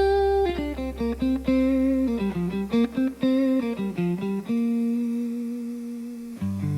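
Blues guitar solo: a fast run of single notes with bent pitches, settling on one long held note about four and a half seconds in, with a deeper bass note joining near the end.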